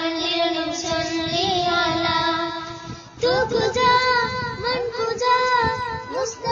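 A young voice singing a Tamil song with musical backing, holding long wavering notes. The line breaks off just before three seconds in, and a new phrase starts.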